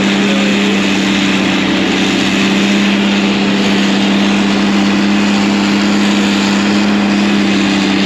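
Vehicle engine running steadily, heard from inside the cab, with a constant low hum that does not change.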